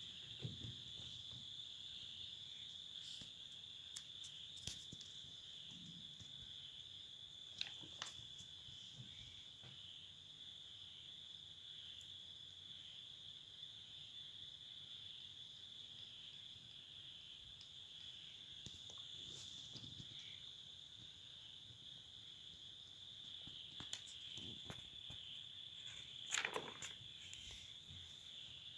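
Faint, steady, high-pitched insect chorus, crickets by its character. A few soft clicks and knocks come and go, with a louder brief scrape or rustle near the end.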